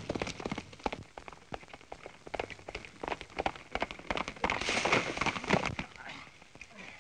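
Horses galloping, a rapid clatter of hoofbeats on an old, crackly film soundtrack, with a louder rush of scuffling noise about two-thirds of the way in as two men go down and grapple on the ground.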